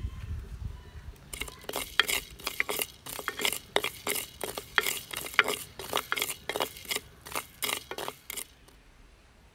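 A spoon stirring and scraping coriander seeds and other whole spices as they dry-roast in a pan without oil. There is a quick, uneven run of clinks and scrapes, several a second, starting about a second in and stopping shortly before the end.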